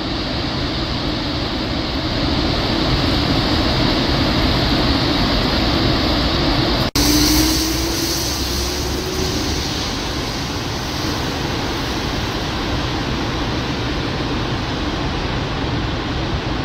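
Steady rushing roar of floodwater pouring through a dam's open spillway gates. A momentary dropout cuts it about seven seconds in, followed by a faint rising hum.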